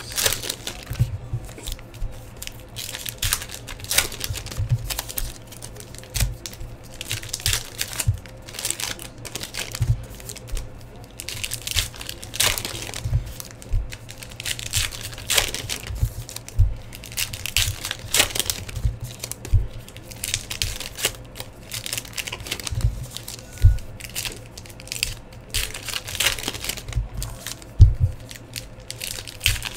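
Trading card pack wrappers from a 2016 Topps Allen and Ginter hobby box being torn open and crinkled by hand, with irregular crackles and rustles throughout.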